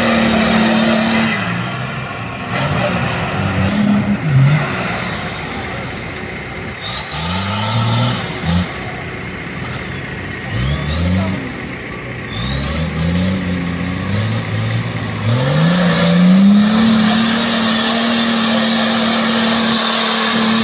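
Nissan Patrol Y60's swapped-in V8 engine revving hard under load in mud, its pitch climbing and dropping again and again, then held high and steady near the end. A high turbo whistle rises and falls above the engine.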